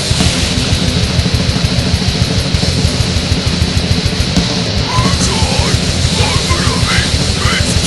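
Fast, loud extreme-metal cover of a grindcore song: distorted guitars and rapid drumming form a dense, chaotic wall of sound. From about five seconds in, high sliding, wavering sounds join in over the top.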